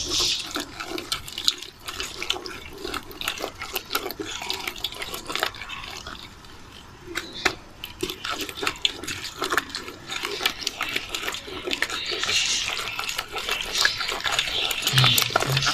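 Wooden spatula pressing and scraping cooked plum chutney through a perforated steel strainer: irregular wet squelching with many small clicks and scrapes as the pulp is forced through the holes.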